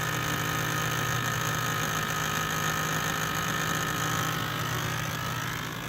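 Ford 6.0 Power Stroke diesel cranking steadily without catching, easing off slightly near the end. This crank-no-start is one the owner suspects comes from a failing high-pressure oil pump.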